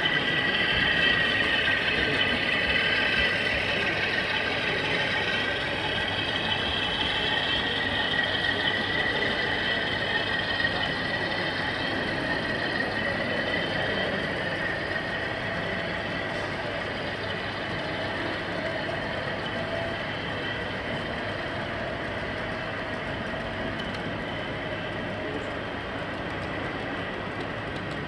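O gauge model diesel train running on the layout: a steady engine-like drone with a high whine, slowly fading away.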